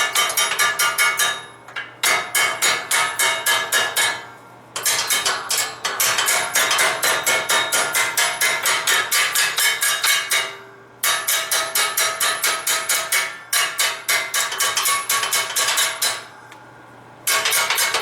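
Rapid hammer blows on hot steel, about six a second, each ringing with a metallic tone. They come in long runs broken by three short pauses, as the end of a forged steel log is worked.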